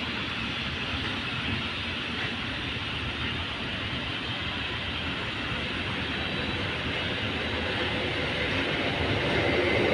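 A Stadler FLIRT3 electric multiple unit approaching along the platform track; its steady running noise grows gradually louder as it nears.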